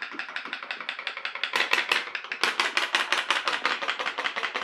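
Homemade pop-pop steam boat running hard on a firelighter block: its aluminium-can boiler makes a rapid, even ticking, about ten pops a second, as the heated water pulses out through its tubes.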